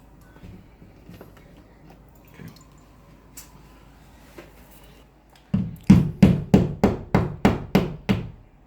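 Hammer blows, evenly spaced at about three a second, starting a little past halfway, driving a toggle anchor into a hole in the wall. Before that only a few faint knocks.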